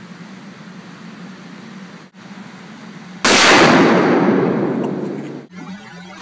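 A single shot from a .500 S&W Magnum revolver about three seconds in: a sudden, very loud blast that rings on in the indoor range for about two seconds. Before it there is only a steady low hum.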